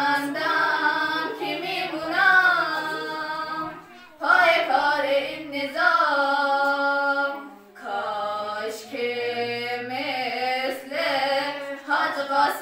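Female voice singing a Persian devotional song in long-held phrases, with two short breaths about four and seven and a half seconds in.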